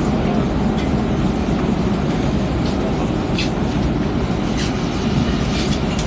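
Stockholm commuter rail X10 electric train running along the track, heard from aboard: a steady low rumble with a few faint clicks.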